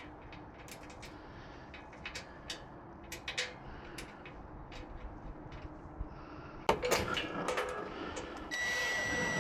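Small metal clicks and taps of bolts, washers and a lock nut being handled and fitted into a metal tailgate-table bracket, with a louder clatter of metal about two-thirds of the way through. Near the end a steady high-pitched whine starts.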